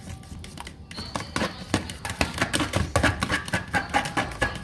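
Metal fork whisking an egg-and-cream batter in a plastic food container, tapping rapidly against its sides and bottom with a fast run of light clicks. The clicking starts about a second in and grows louder.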